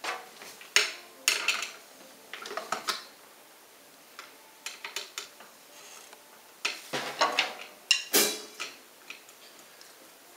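Irregular clicks, knocks and metallic clinks from drumsticks and hardware being handled at a drum kit, with no beat played yet. The clinks come in small clusters, the loudest a little past the middle.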